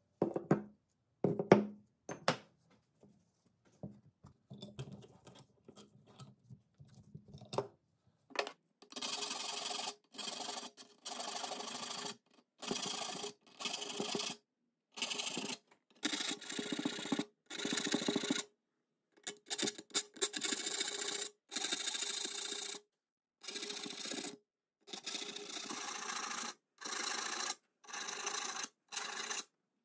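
A file rasping across the teeth of a hand saw clamped in a vise, sharpening them in short, even strokes, a little more than one a second. Before that, for the first several seconds, only a few scattered knocks and clunks.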